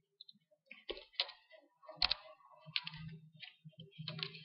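Computer keyboard being typed on: a few separate keystroke clicks at an uneven pace.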